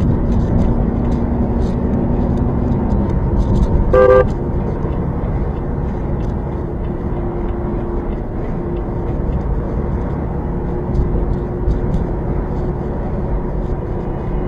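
Steady engine and road noise of a semi-truck driving at highway speed, heard from inside the cab, with one short horn blast about four seconds in.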